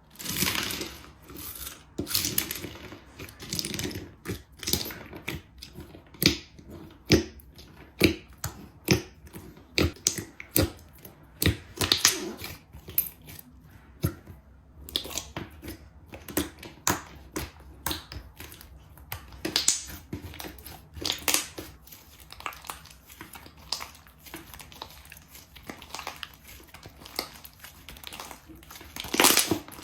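Slime being squeezed and poked by hand, giving irregular sharp pops and crackles, a few a second, with a short pause about halfway through.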